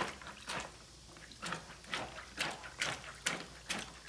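A plastic bottle pounding soaked, softened açaí berries in a plastic basin, about two strokes a second, mashing the pulp off the seeds.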